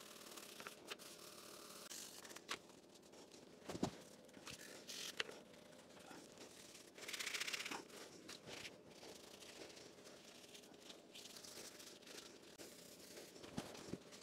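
Faint wiping and scrubbing of a paper towel in a gloved hand over the base and table of a DoAll drill press, with a few sharp clicks and a brief, louder spell of scrubbing about seven seconds in.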